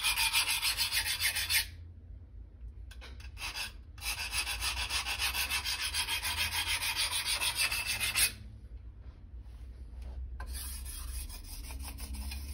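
A hand file rasping along the steel edge of a 165 mm Santoku in quick strokes, deliberately dulling the edge before sharpening. The filing comes in two runs: it stops about two seconds in, starts again about four seconds in, and gives way to softer sounds about eight seconds in.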